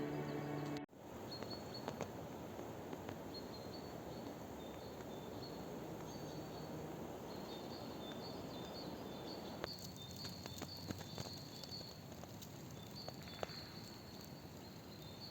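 Faint forest ambience with distant small birds singing short, high, thin notes again and again, and a few small clicks about two-thirds of the way through. Background music fills the first second before cutting off.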